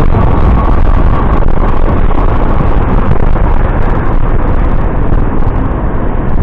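Motorcycle on the move, its engine running under a loud, steady rush of wind on the microphone.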